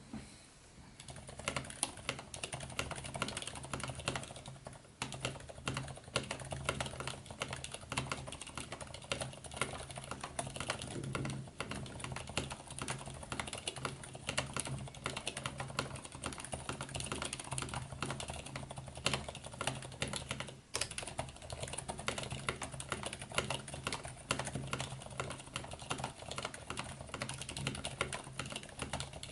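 Fast, continuous typing on a mechanical keyboard with Cherry MX Silent Black linear switches, in an acrylic case with PBT keycaps, as a dense run of soft, muted keystrokes. It starts about a second in.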